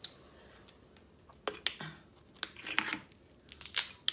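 Boiled snow crab shell being cracked and pulled apart by hand: a scattering of sharp snaps and crackles, busiest near the end.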